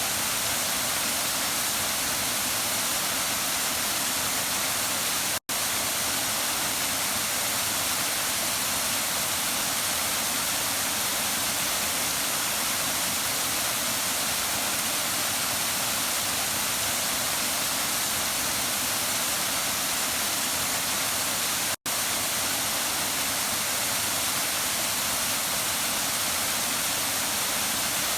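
Waterfall rushing in a steady, even hiss of falling water. The sound drops out to silence for a split second twice, about five seconds in and again about two-thirds of the way through.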